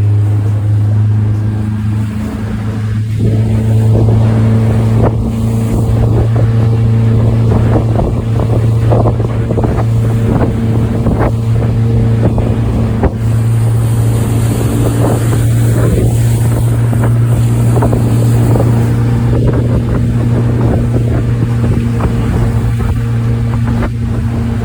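Boat's outboard motor running steadily under way, its pitch rising a little about two to three seconds in, with water splashing against the hull and wind on the microphone.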